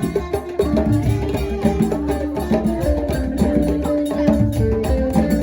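Music with fast hand-drum percussion and a melody of held notes that step up and down in pitch.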